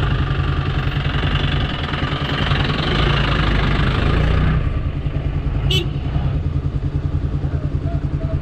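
Motorcycle engine running steadily, with a rushing noise over it that drops away about four and a half seconds in, leaving the engine's even low pulsing. There is one brief sharp click about six seconds in.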